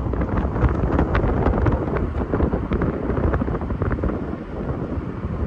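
Wind buffeting the microphone: a loud low rumble with crackling pops.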